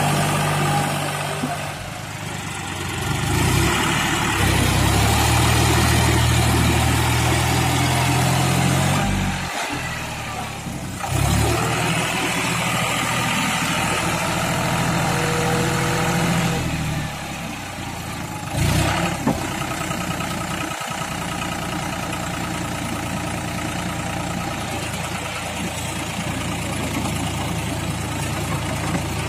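John Deere 5104 tractor's three-cylinder diesel engine running under load while it pulls a rotary tiller through wet mud. The engine note rises and falls several times as the load changes.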